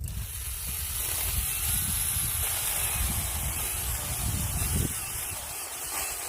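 Battery-powered mini chainsaw, running on an 18 V battery, runs for several seconds with an even whirring hiss and cuts off sharply.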